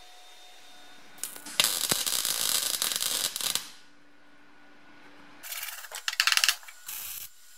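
MIG welder crackling as it lays a plug weld through a hole in a steel car body panel: one burst of about two seconds, then several short bursts a couple of seconds later.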